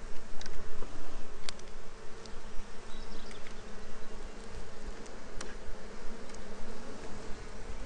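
Honey bees from an opened Layens hive buzzing in a steady hum, with two sharp faint clicks, about a second and a half in and again past the middle.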